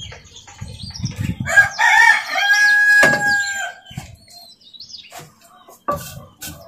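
A rooster crows once, a long call that ends on a held note. Near the end, a wooden pestle knocks a few times into a mortar of spices.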